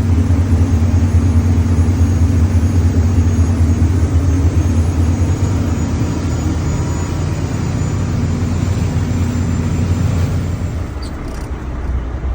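Boat motor running steadily with a loud, low hum, easing off a little near the end.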